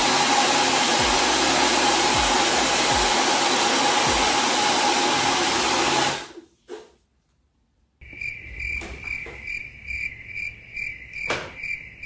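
Dyson Supersonic hair dryer running with a steady rush of air and a thin whine, switched off about halfway through. After a short gap, soft background music with a repeating high chime.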